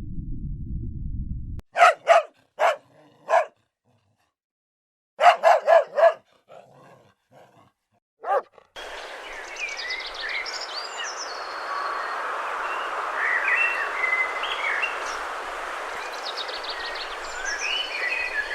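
A dog barking: a quick run of four short barks, then another run of four about two seconds later. It opens on a low rumble, and from about halfway through a steady noisy background with high chirping calls takes over.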